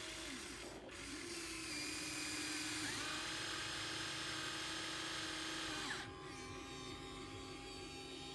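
Radio-controlled model excavator's electric motor and hydraulic pump whining as it works. The whine gets louder about a second in and shifts in pitch partway through, then drops back to a quieter, lower whine near the end.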